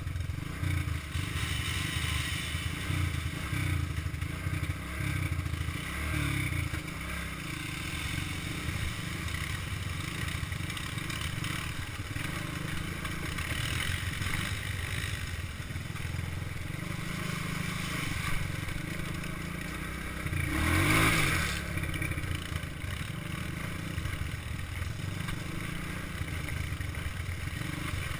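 ATV engine running at low riding speed over a rocky creek-bed trail, with steady clattering and scraping from the machine and the loose stones under it. About two-thirds of the way through there is a brief louder rushing surge.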